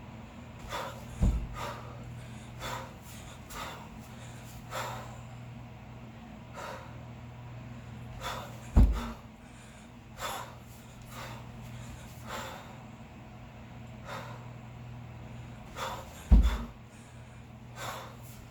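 Hard, sharp breathing of a kettlebell lifter in a long cycle set, short forceful exhales coming every second or so. Three heavy thuds about seven and a half seconds apart, one per rep of the double 16 kg kettlebells, are the loudest sounds, over a steady low hum.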